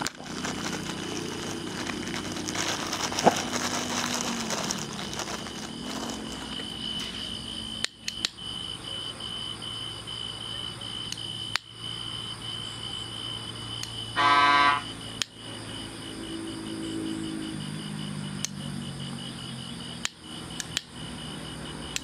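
Crickets chirping in a steady, high, fast-pulsing trill. About two-thirds of the way through, a short horn beep sounds, the loudest thing heard.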